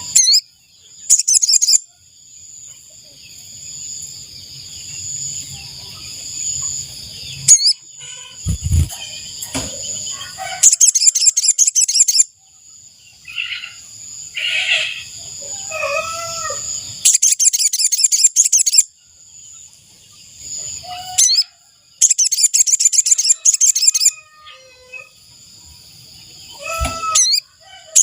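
Sogon bird calling as a lure recording: bursts of rapid, high chirping trills, each lasting one to two seconds and repeated every few seconds. A steady high ringing tone runs beneath until about three-quarters through, with scattered lower calls and a couple of knocks between the bursts.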